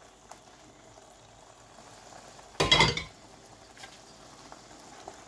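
Chorizo and tomato sauce simmering faintly in a frying pan on the burner, with the tagliatelle just added on top. About halfway through comes one brief, loud clatter of a utensil against the pan, followed by a few light ticks.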